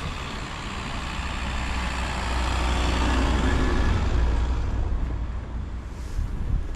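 A motor vehicle driving past on a snowy street: a noise that swells to a peak mid-way and fades away, over a steady low rumble.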